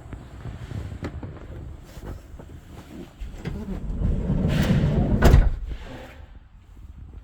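A van's sliding door rolling along its track and slamming shut a little past five seconds in, the loudest moment, over low rumbling and a few light knocks.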